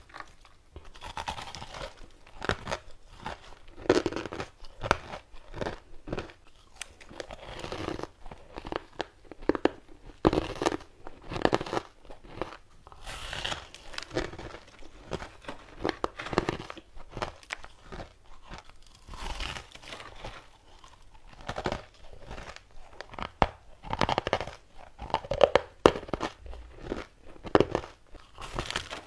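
Person biting and chewing clumped chunks of crushed ice: irregular crisp crunches, several close together at times, with brief pauses between bites.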